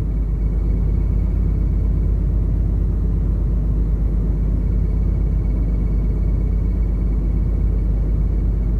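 Steady low rumble of a tanker under way, with a faint steady high whine above it.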